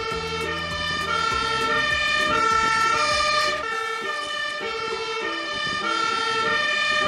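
Two-tone siren of a Magirus Multistar aerial ladder fire engine, alternating between a high and a low note roughly every half second, with the truck's engine rumbling underneath that fades out about halfway through.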